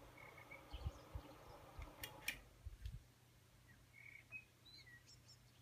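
Mini flower-shaped desk fan's motor running with a faint hum, then two sharp clicks a little over two seconds in and the hum stops: the fan being switched off. Faint bird chirps behind it.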